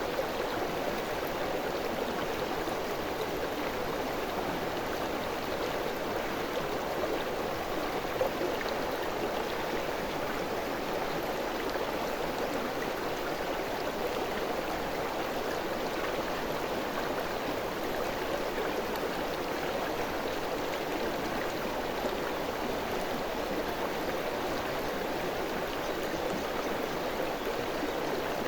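River water rushing and gurgling over rocks in a steady, unbroken flow.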